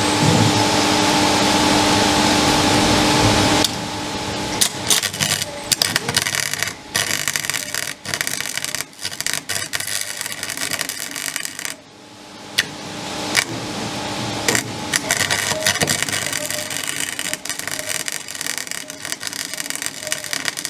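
A steady rushing noise for the first few seconds, then the irregular crackling and sputtering of a flux-cored wire welder's arc, in runs with a short break around the middle. The welds are mending cracked steel paddles on a waterwheel.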